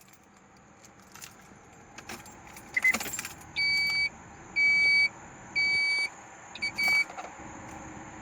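Car keys jangling and clicking, then the car's electronic warning beeper sounding a series of half-second beeps about once a second, the last one broken into two short beeps.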